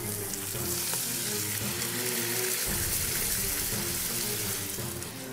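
Food sizzling as it fries in a hot pan, a steady hiss, with faint background music underneath.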